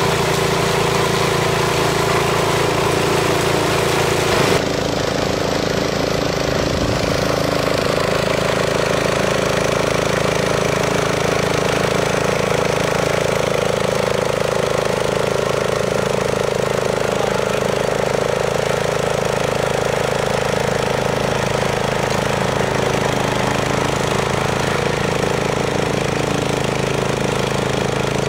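Briggs & Stratton 344 cc single-cylinder engine of a self-propelled brush mower running steadily while the machine mows tall grass. The engine note shifts abruptly about four and a half seconds in, then holds steady.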